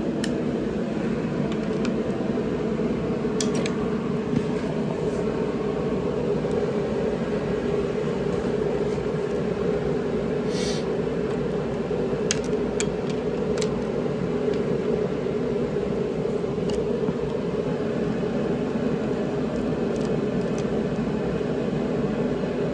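A steady mechanical hum at an even level, with a few short clicks scattered through it.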